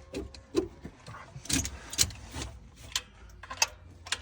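Metal tools clinking and knocking in a series of about seven sharp, separate hits over a steady low hum.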